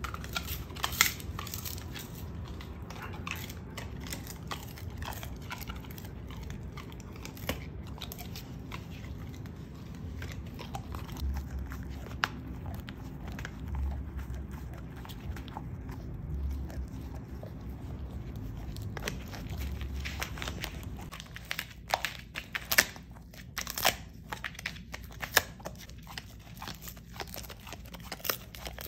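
Five-month-old golden retriever puppy chewing a fish-skin teething chew: repeated crunching and crackling as the skin is gnawed and torn, with louder, sharper crunches in the last third.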